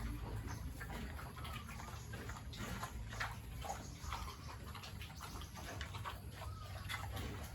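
Farm animal activity: irregular clicks and taps with a few short high chirps, over a steady low rumble.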